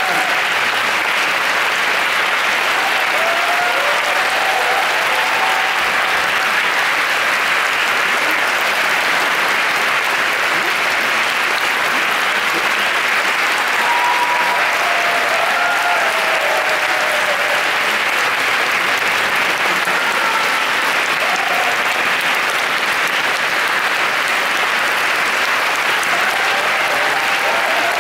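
A theatre audience applauding steadily, with occasional cheering voices rising above the clapping.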